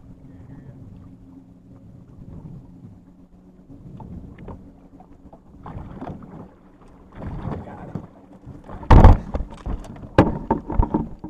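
Knocks and thumps of people moving about and handling gear in a fishing boat, with one very loud thud about nine seconds in, over a low steady hum.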